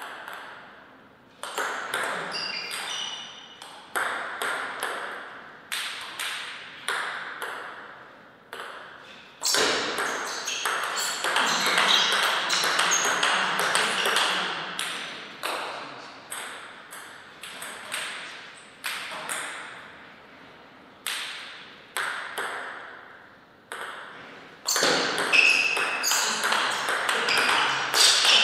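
Table tennis ball clicking on the table and off the paddles in quick rallies, with slower, spaced single bounces between points.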